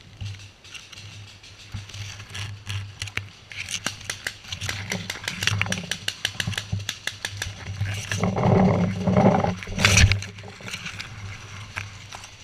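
Irregular rapid pops of paintball markers firing in the woods, thickest in the middle of the stretch. Near the end comes a louder rustling rumble and one sharp knock about ten seconds in.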